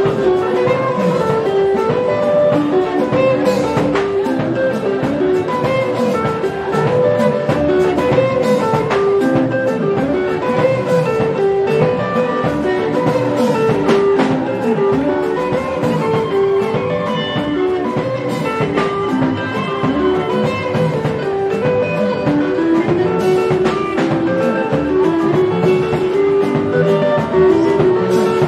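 Live band music: an electric guitar picking a lively stepping melody over a drum kit.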